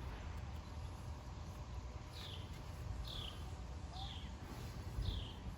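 A bird calling outdoors: a short, high chirp sliding downward, repeated about once a second, over a steady low background rumble.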